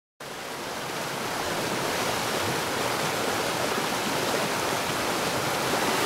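A waterfall's water falling and rushing as a steady roar. It begins suddenly in the first moment and grows slowly louder.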